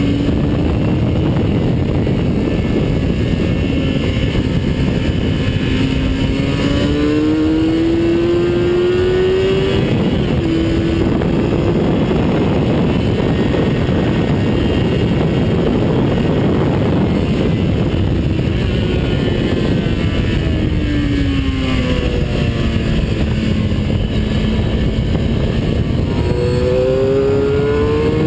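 Vehicle engine at racing speed under heavy wind rush. The engine note climbs under acceleration, changes with a gear shift about ten seconds in, and falls away while slowing at around twenty seconds. It climbs again near the end.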